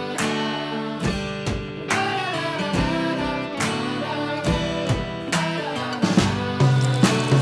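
Background music with a steady beat, deep bass notes coming in near the end.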